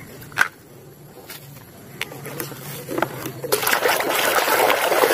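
A few light clicks from handling a plastic toy dump truck, then, about three and a half seconds in, a hand swishing and sloshing through soapy foam and water in a basin.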